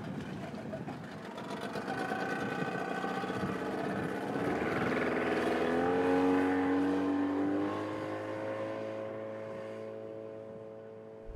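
Outboard motor on a small open boat opening up and pulling away, its pitch rising about halfway through and then holding steady as the sound fades.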